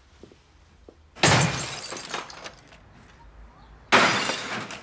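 Two loud crashes of something breaking, about two and a half seconds apart, each starting suddenly and trailing off over about a second.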